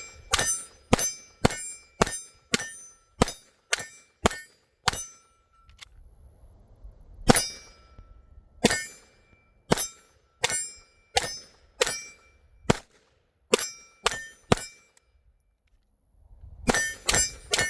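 Strings of 9mm pistol shots from a Glock 45, each answered by the ringing of a steel target plate, at about two shots a second, with the ring switching between a lower and a higher plate as the shooter transitions between targets. There are three strings with short pauses between them, and the last one starts near the end and is faster.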